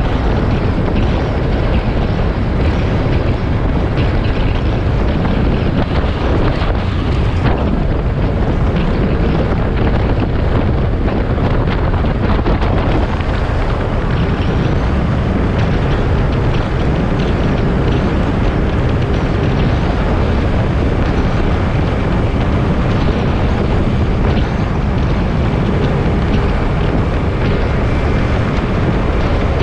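Motorcycle riding at steady road speed: loud, steady wind rumble on the microphone over the engine and tyre noise.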